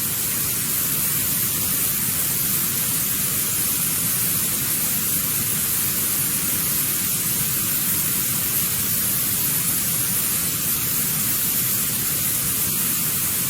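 Steady television static hiss, like a broadcast that has lost its signal.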